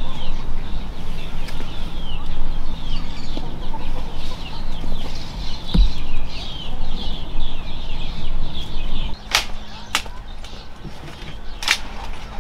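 Chickens clucking, with many short, high, overlapping calls, then a few sharp knocks over the last few seconds.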